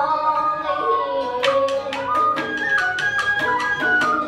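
Traditional Vietnamese music: a melodic instrument plays a stepping tune, and about a second and a half in a quick, even percussion beat joins at roughly four to five strikes a second.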